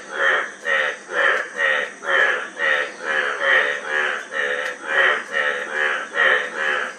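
Frogs croaking loudly, short croaks repeating about twice a second without a break.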